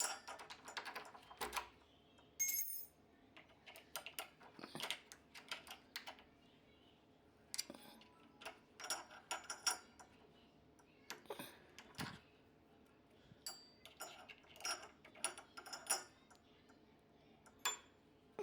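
Faint, irregular small clicks and taps of an Allen key and door-handle hardware being handled and worked.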